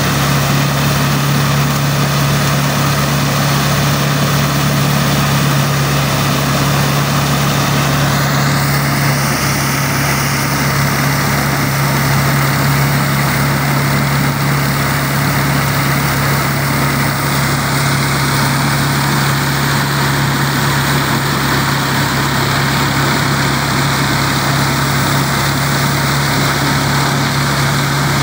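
Farm tractor engine running steadily at working speed, driving a shaft-powered maize thresher as corn cobs are fed in, giving a loud constant hum with the thresher's dense churning noise over it.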